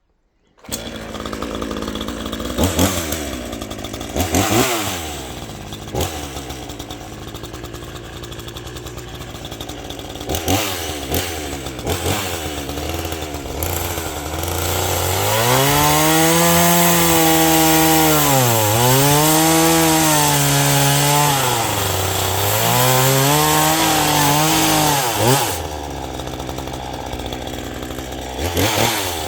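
Gas chainsaw running: blipped and idling at first, then held at full throttle from about halfway through while cutting an oak slab. In the cut the engine pitch sags and recovers several times under load, then drops back to idle, with one more rev near the end.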